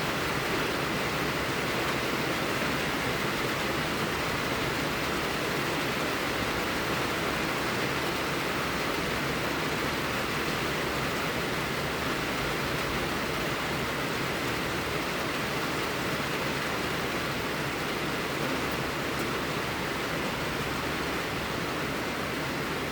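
Steady, even rushing noise of blizzard wind, unchanging throughout.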